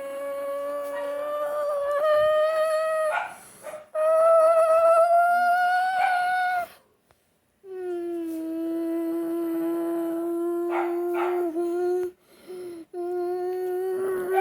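Long drawn-out howling cries in held notes that drift slowly upward, broken by short pauses.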